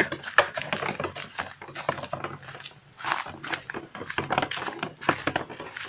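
Footsteps crunching along a dirt path: an irregular run of short clicks and crunches, several a second.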